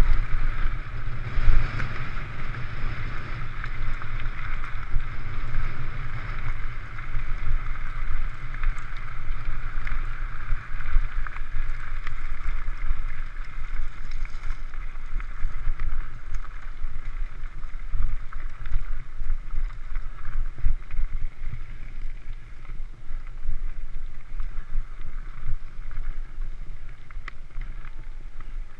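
Wind rushing over the microphone of an action camera mounted on a mountain bike at speed, over the rumble of knobby tyres rolling on a gravel road. The higher part of the noise is strongest in the first several seconds and eases off later.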